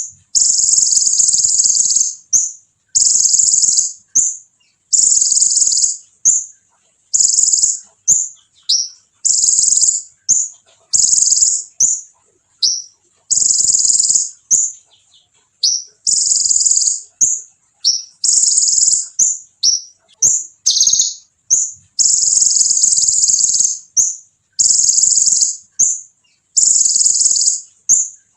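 Olive-backed sunbird (kolibri ninja) singing non-stop. Its shrill, high-pitched phrases last a second or two each and come one after another with short gaps, with quick sliding notes in between.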